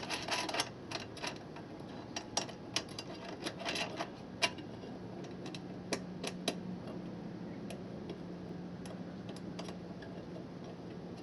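Irregular sharp metallic clicks and clinks from hand tools and bolt hardware working on a truck side-step mounting. They come thick in the first few seconds and grow sparse after, over a faint steady hum.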